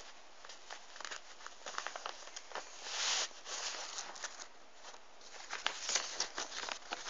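A sheet of paper being handled and folded by hand: irregular rustling and crisp crackles, with a longer swish about three seconds in.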